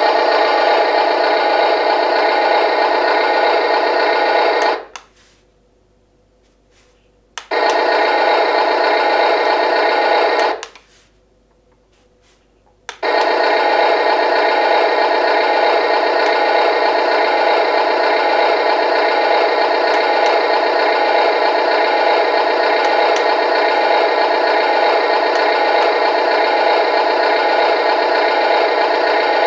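Steady electronic sound effect from the RC wheel loader's small built-in speaker, thin and without bass. It cuts out twice for a couple of seconds, about five and eleven seconds in, and then comes back.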